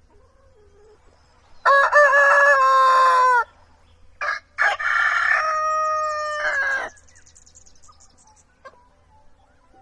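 Rooster crowing twice, two loud cock-a-doodle-doo calls about a second apart, the second opening with two short notes before its long drawn-out part.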